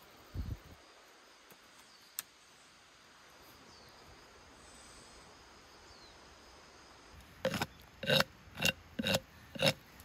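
Hand saw cutting through a wooden branch: five rasping strokes at about two a second in the last few seconds. Before them come a soft low thump near the start and a single sharp click.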